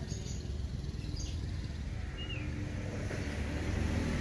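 Outdoor background: a steady low rumble, with a single short bird chirp about two seconds in.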